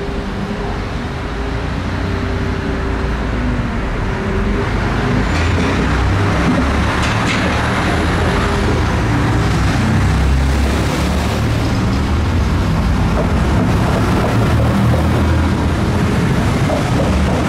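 DSB IC3 diesel multiple-unit train running along the platform: diesel engine drone and wheels rumbling on the rails, getting louder over the first several seconds as the carriages roll past.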